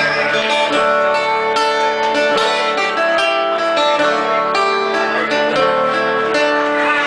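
Acoustic guitar strumming chords in an instrumental break between sung verses, with regular strokes at a steady tempo.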